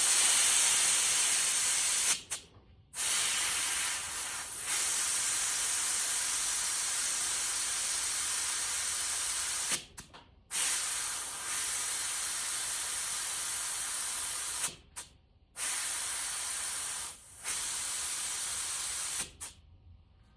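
Air hissing out through the valve stem of a dirt bike's front-tire inner tube, let down from 45 PSI toward riding pressure. It comes out in long steady releases, stopping briefly about 2, 10 and 15 seconds in, and again near the end.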